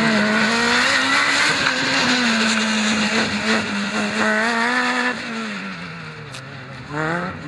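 Modified supercharged Lotus race car's engine revving hard around an autocross course, its pitch rising and falling through the turns. The engine note drops away about five seconds in and builds again near the end.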